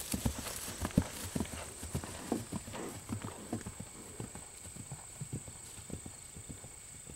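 Horse's hooves thudding on grass turf at a canter, growing fainter as the horse moves away.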